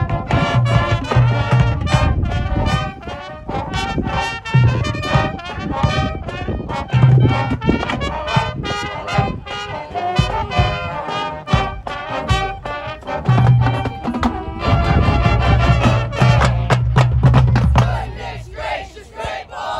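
Marching band playing outdoors: trombones and trumpets carry the tune in loud held brass chords over bass drum and drumline hits.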